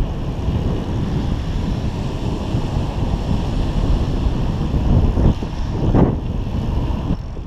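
Wind buffeting the microphone of a helmet-mounted GoPro Hero 3 on a moving bicycle: a loud, steady rumble that swells briefly about five and six seconds in.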